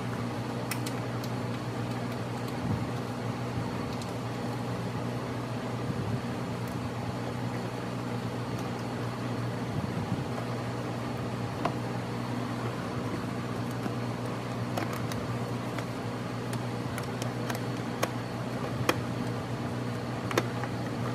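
Steady mechanical hum, with a few faint, scattered clicks of hand tools working fasteners in a car's wheel well.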